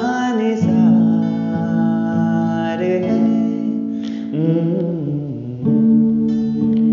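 A man singing long held notes over a strummed steel-string acoustic guitar; about two thirds of the way through the voice stops and the guitar chords go on alone.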